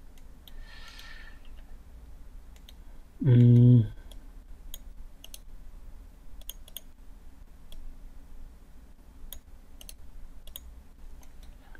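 Computer mouse buttons clicking: a scattering of sharp single clicks, irregularly spaced, over a faint low hum. A short vocal sound from a person cuts in about three seconds in.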